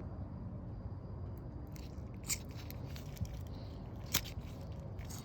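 Heat gun blowing steadily at full power, a low even rush of air, with a few sharp clicks of handling about two, four and five seconds in.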